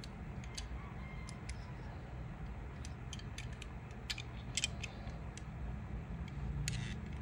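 Scattered small clicks and taps of fingers handling a 1:64 die-cast model car as it is turned over in the hand, over a low steady hum.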